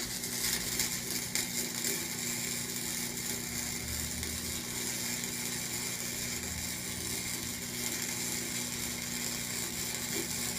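Wire-feed (MIG) welder arc crackling and hissing steadily as a weld is run, with a steady low electrical hum underneath. The even, unbroken crackle goes with a good weld.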